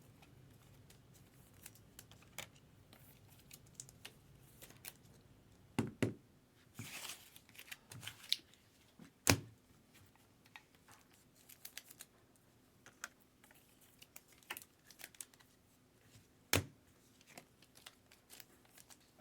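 Baseball trading cards being handled on a table: scattered light taps and clicks, with sharper knocks about six, nine and sixteen seconds in, and a short rustle about seven seconds in.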